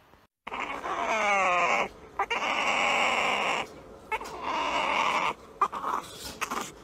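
A small white puppy vocalising with a plastic spoon in its mouth: a falling whine about a second in, then raspy grumbles lasting a second or so each, with short gaps between.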